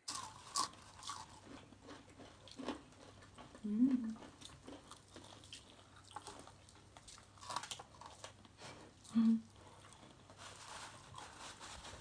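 Close-up chewing and crunching of crispy fried chicken: repeated crackly bites and chews. Twice, about four and nine seconds in, a short low voice sound rises above them.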